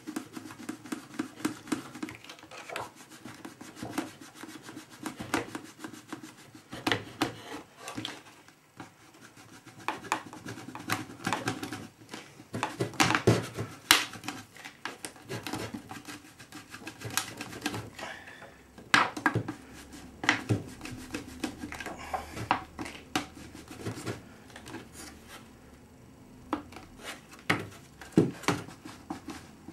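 Thin mylar sheet being wiggled back and forth between a fibreglass-and-epoxy moulding and its mould, giving irregular rubbing and scraping with many sharp crackling clicks as the part is worked free of the mould.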